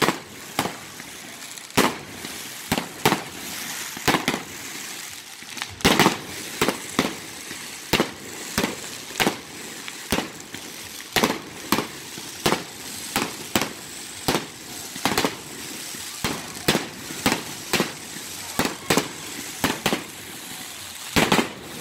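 Aerial fireworks display: shells bursting in a rapid, irregular series of sharp bangs, about two a second.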